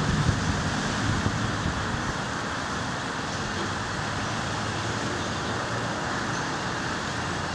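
Steady outdoor background noise: an even hiss with no distinct events, a little fuller in the low end for the first second or so.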